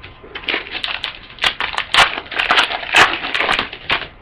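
Crinkling and crackling of a trading card pack's wrapper being handled and torn open, in a quick irregular run of snaps and rustles.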